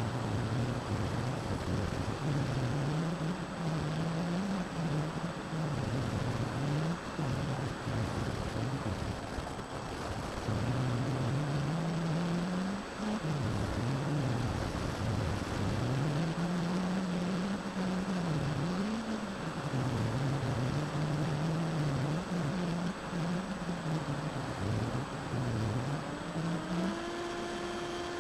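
Brushless electric motor and 7x6 propeller of a Skywalker FPV plane in flight, heard over steady wind rush, its pitch rising and falling again and again as the throttle changes. A steady hum sets in near the end.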